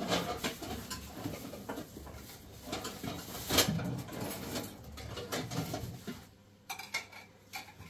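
Plastic bags rustling and crinkling as fruit is taken out of them, in irregular bursts, the loudest about three and a half seconds in, over a low murmur of low-pitched sound. It gets quieter about six seconds in.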